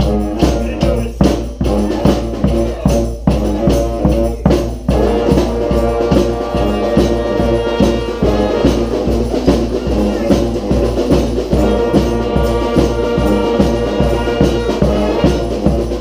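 Street brass band playing: bass drum and snare keep a steady beat while sousaphone, saxophones, trombones and trumpets play, the horns coming in full about five seconds in.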